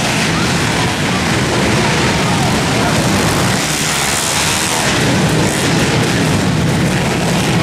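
Several four-stroke pit bike engines racing around an indoor dirt track, revving up and down as riders jump and corner, echoing through the arena.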